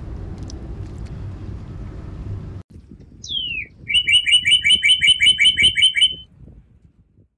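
Bird-like chirping: a single falling whistle, then a fast trill of about a dozen bright chirps lasting a couple of seconds. Before it, a low outdoor rumble cuts off abruptly.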